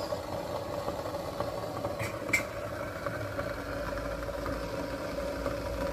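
Steady mechanical hum like a running motor, with two light clicks a little after two seconds in and a deeper rumble building from about four seconds in.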